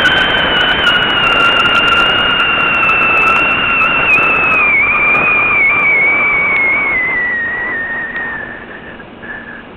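Wind rushing over a model rocket's onboard camera as it descends, with a clear whistle that slowly falls in pitch. The sound fades out near the end.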